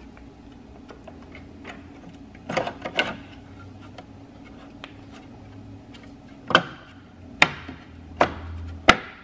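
Plastic trim bezel of a BMW E46 headlight being pressed onto the housing, its clips snapping into place: a few knocks about three seconds in, then four sharp snaps over the last three seconds, over a steady low hum.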